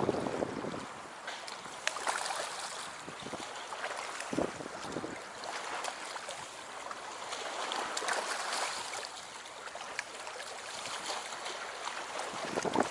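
Choppy lake water lapping at the bank, with wind buffeting the microphone and a few light clicks.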